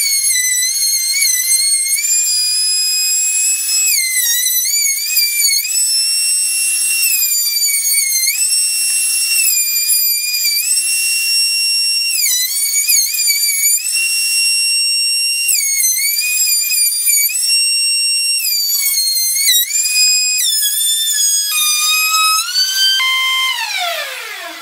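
Table-mounted router with a chamfer bit, running with a loud high-pitched whine. The pitch sags and recovers again and again as the bit takes each cut along the board's edges. Near the end the whine glides steadily down as the router spins down.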